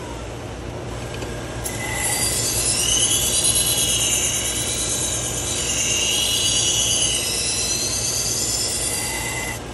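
A Shun kitchen knife's edge ground on the 3M Trizact belt of an AMK-75 belt sharpener. It makes a high, shifting squeal that starts about two seconds in and stops just before the end. Under it runs the steady drone of a dust collection system and fans.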